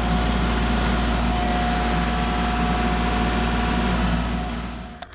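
Kubota L3901 compact tractor's three-cylinder diesel engine running steadily and loud, cutting off abruptly just before the end.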